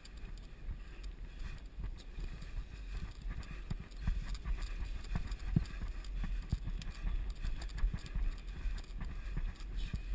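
Mountain bike rolling fast over a bumpy dirt trail: tyres and frame rattling and knocking irregularly over the ruts and roots, under a low wind rumble on the microphone.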